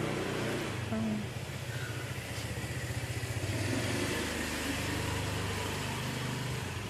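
A steady, low engine hum over a wash of street noise, shifting slightly in pitch about halfway through.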